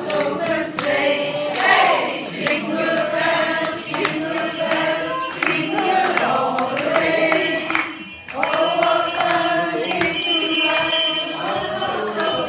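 A group of voices singing a song together, accompanied by a jingling percussion shaken in a steady rhythm, with a brief break about two-thirds of the way through.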